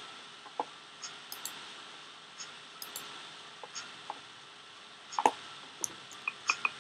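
Computer mouse clicking at irregular intervals over a faint steady hiss, with a louder double click about five seconds in.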